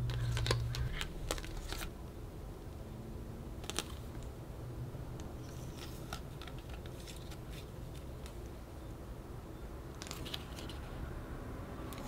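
Photocards and plastic photocard holders being handled: light clicks and plastic rustles, bunched in the first two seconds and again about ten seconds in.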